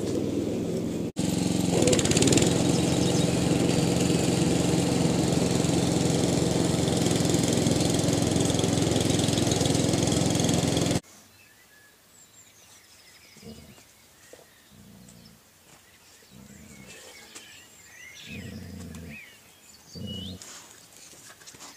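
A steady motor drone with a constant low hum runs for about ten seconds and cuts off suddenly. After it, short low growls and grunts come every second or two from golden retriever puppy and adult dog playing.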